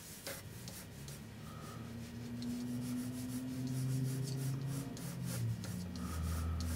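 Pencil sweeping lightly across drawing paper in long, loose gesture strokes: a soft, repeated scratchy rubbing. A low, steady hum comes in underneath about a second and a half in.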